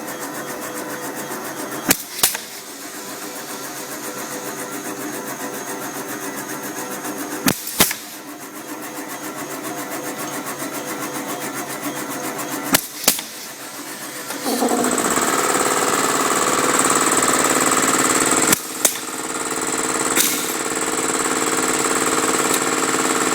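MS3112 drilling-slotting machine running steadily, with pairs of sharp clicks about every five seconds. About two-thirds of the way through it grows louder, with a higher whine.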